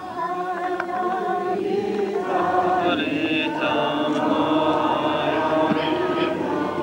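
A group of voices singing Ukrainian Eastern-rite liturgical chant in long held chords, growing fuller about two seconds in.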